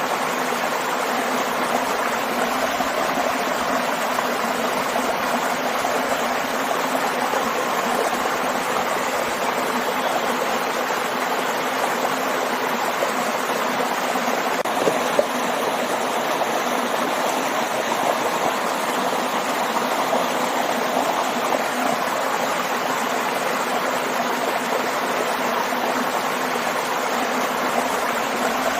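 Stream and small waterfall rushing and splashing steadily, with a single brief splash or knock about halfway through.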